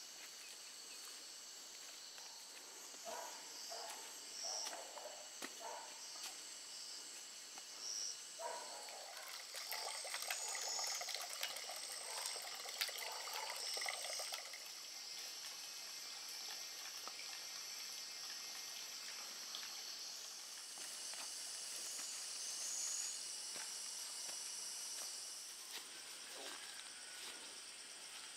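Faint evening insect chorus, a steady high-pitched shrill of crickets, with patches of rustling or footsteps in the first half.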